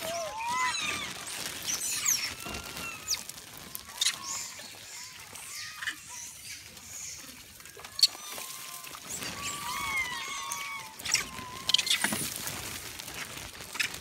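Macaques squeaking and chirping, many short high calls bending up and down and overlapping as the troop crowds and squabbles over food. A few sharp clicks come between the calls, the loudest about eight seconds in.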